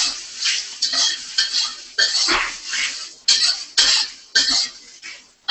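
Spatula scraping and tossing fresh rice noodles around a wok, in quick, scratchy strokes about twice a second.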